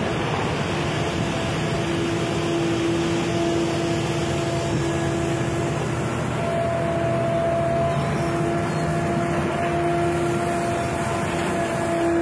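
Shore excavator's engine and hydraulics running steadily as it works its grab: a constant machinery drone with a steady hum over it that drops out briefly about five seconds in.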